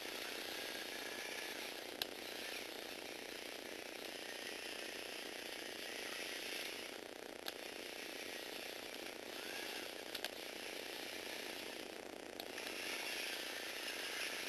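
Small Lego Technic robot's electric motor and plastic gear train whirring steadily as it moves along on its wheels. A few sharp clicks cut through the whir; the loudest comes about two seconds in.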